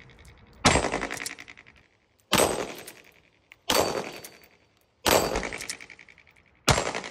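Five semi-automatic pistol shots, each about a second and a half after the last, each trailing off in a long ringing echo.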